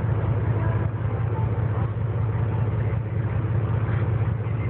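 Boat engine running with a steady low hum, under a haze of wind and sea noise.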